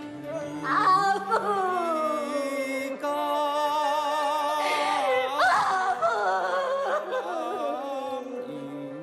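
Taiwanese opera (gezaixi) singing: a solo voice enters about a second in and sings long, drawn-out phrases that slide downward, with a wide vibrato, over a steady instrumental accompaniment.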